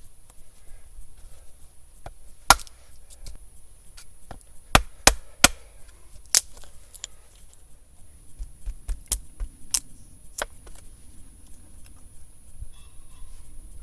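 A wooden baton knocking on the spine of a knife to split small sticks of wood on a log chopping block: a string of sharp, irregular knocks, with three in quick succession about five seconds in.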